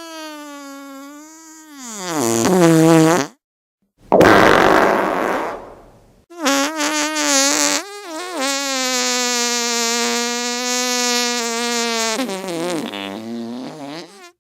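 Three fart sounds in a row. The first is a pitched one that slides down in pitch over about three seconds. The second is a short, airy one without pitch. The third is a long, steady buzzing one that wavers at first, holds its pitch for several seconds, then drops off at the end.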